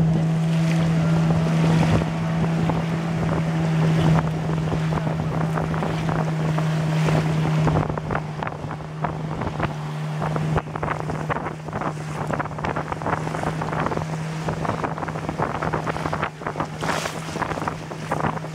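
A river longboat's outboard motor running steadily at speed, with water rushing and splashing along the hull and wind buffeting the microphone.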